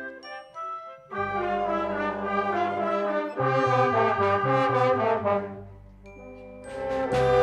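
Youth orchestra playing sustained chords with the brass to the fore. A full chord comes in about a second in and holds, dies away around six seconds, then swells back up near the end.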